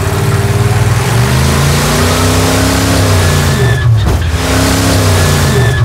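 Supercharged 454 big-block Chevy V8 of the shortened 1950 Ford F6 dump truck, heard close up at the engine while the truck drives. The engine note climbs and then falls, breaks briefly about four seconds in, and pulls again.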